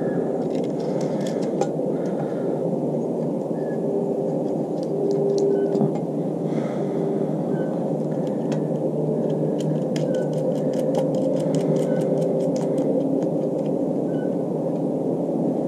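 Small nuts being spun by hand onto the threaded studs of a bath-fan motor mounting plate: light metallic clicking and ticking, in short clusters and in a quick run of clicks partway through. Under it runs a steady low rumble of background noise.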